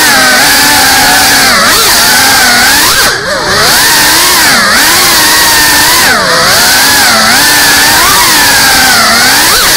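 GEPRC Cinelog 35 cinewhoop's brushless motors whining loudly, the pitch swooping up and down constantly with the throttle, with brief dips where the throttle is chopped about three and six seconds in.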